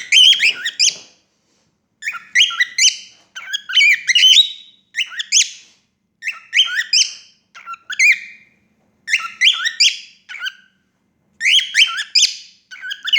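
Female cockatiel whistling and singing in short phrases of quick notes that glide up and down, about nine phrases, each around a second long, with brief pauses between.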